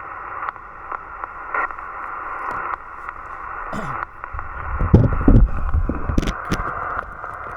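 HF transceiver's speaker hissing with band noise and static on a quiet sideband frequency, with no station answering the CQ. From about four seconds in, irregular low rumbles come and go and are the loudest sound, peaking around five seconds.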